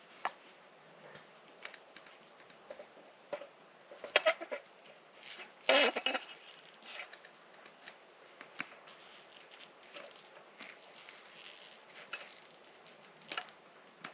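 Small plastic cord fittings handled and pried apart by hand: scattered clicks, taps and light scrapes, with a louder scrape about six seconds in.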